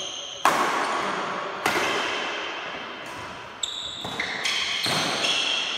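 Badminton rackets hitting a shuttlecock in a rally: four sharp smacks about a second or two apart, each ringing out in the hall's echo. Shoes squeak on the court floor between the shots.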